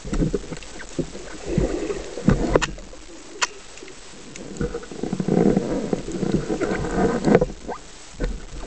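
Underwater clicks and knocks as a speared white seabream is handled on a band speargun's shaft, with a denser muffled low rumble from about five to seven seconds in.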